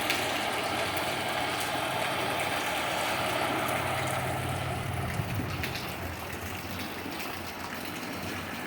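A vehicle's engine running as it moves through deep floodwater, over a steady rush of water; the engine hum drops away about halfway through.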